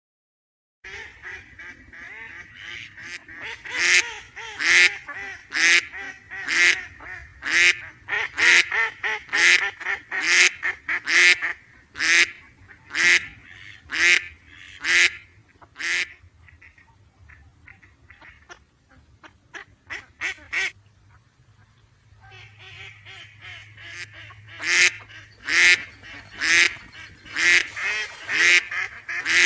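A duck quacking in a long series of loud calls, about one a second. Partway through, the calls turn softer and shorter for a few seconds, then loud quacking starts again.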